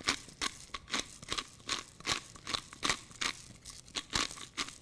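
Hand-twisted pepper mill grinding peppercorns, a run of dry crunching strokes, about four a second.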